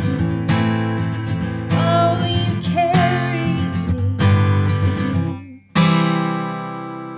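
Acoustic guitar strumming a song's closing chords, one about every second and a half; the last chord, near the end, is left to ring and fade.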